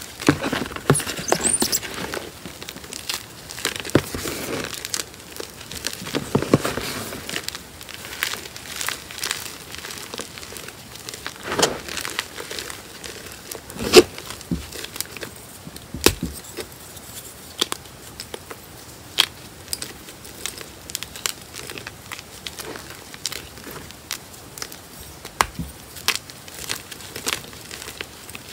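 Gym chalk crushed and crumbled by hand in a tray of chalk chunks and powder: irregular dry crunches and snaps over soft powdery rustling. The sharpest crunch comes about halfway through.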